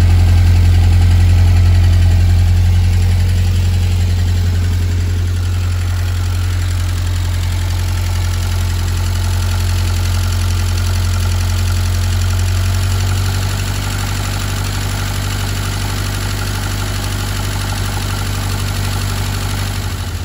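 1952 Fordson E83W's side-valve four-cylinder engine idling steadily, its new exhaust and freshly adjusted tappet in place. It is heard first at the tailpipe, then from the open engine bay, where it is a little quieter.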